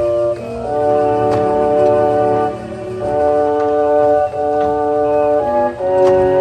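Karakuri clock's show music: sustained organ-like chords that change every second or so, with a few light clicks.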